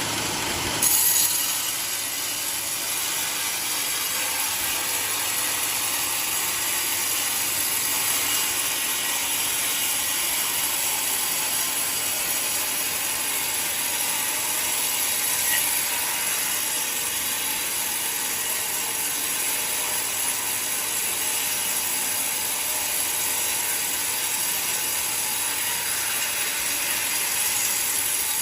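Portable sawmill cutting through a coconut log: a brief louder burst about a second in, then a steady, hissing saw sound that holds for the rest of the stretch.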